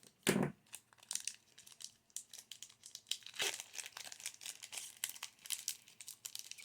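A foil booster-pack wrapper crinkling and tearing as a Pokémon card pack is opened, in a dense run of crackles, with a brief low sound about a third of a second in.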